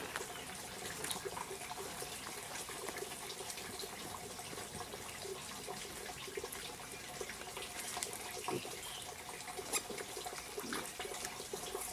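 Steady trickle of running water, with scattered light clicks and rustles of a wild boar sow and her striped piglets rooting in the dirt and leaf litter.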